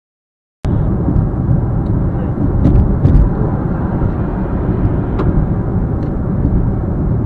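Silence, then about half a second in a steady rumble of road and engine noise inside a moving car cuts in, as picked up by a dashcam at highway speed, with a few faint clicks.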